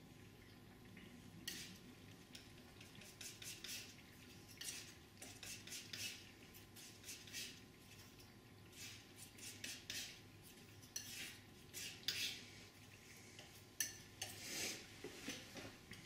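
Flexible steel painting knife mixing and spreading oil paint on a palette: quiet, irregular short scrapes and light taps of the blade against the palette surface.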